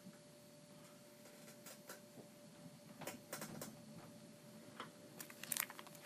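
Plastic sleeve pages of a trading-card binder being handled and turned: scattered faint crinkles and clicks, with the loudest cluster about five and a half seconds in.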